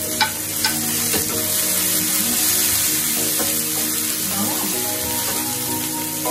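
Mixed vegetables, onions and garlic sizzling in hot oil in a nonstick frying pan as they are stirred with a wooden spatula, with a few sharp taps in the first second as the vegetables drop in and the spatula meets the pan.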